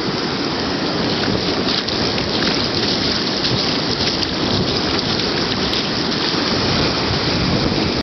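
Baltic Sea surf and shallow wash running over wet sand around bare feet: a steady rushing hiss that never lets up.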